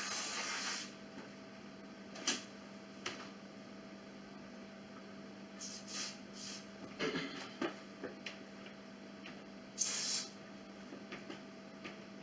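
Aerosol lubricant sprayed onto a garage door hinge in two short hisses, one lasting about a second at the start and a shorter one about ten seconds in. Light clicks and knocks from handling come in between.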